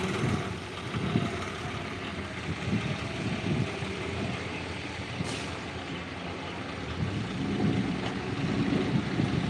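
Diesel engines of a working excavator and a tractor running together, a steady low rumble that swells and eases, louder near the end.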